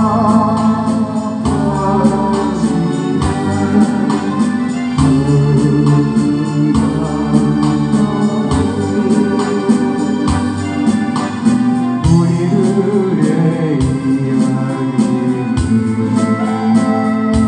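Instrumental interlude of a song's accompaniment: an electronic organ plays sustained chords and melody over held bass notes and a steady beat, with no singing.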